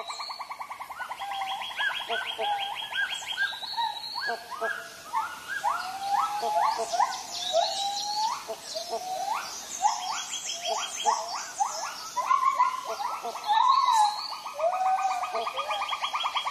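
Tropical forest chorus: many birds giving short rising whistled calls and high chirps over a steady, fast-pulsing trill. A second, higher trill joins in the first few seconds and again near the end.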